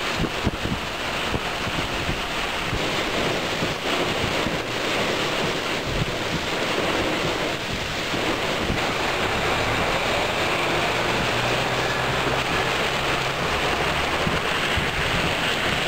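Thunderstorm downpour: heavy rain hissing steadily, with strong wind gusts buffeting the microphone, most of all near the start.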